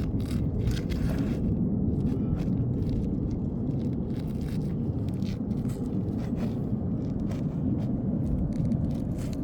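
Short scrapes and clicks of hand tools prying at old asphalt roof shingles, over a steady low rumble.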